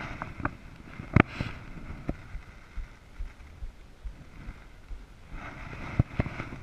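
Hard knocks and bumps on a plastic fishing kayak as the catch and gear are handled, the loudest about a second in and a pair of them near the end, over a steady rush of wind and water.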